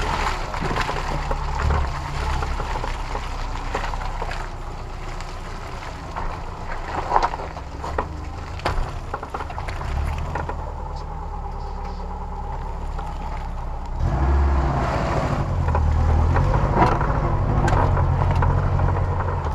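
An off-road 4x4's engine running at crawling speed along a rutted track, with occasional knocks from the body over bumps. The engine gets louder about fourteen seconds in.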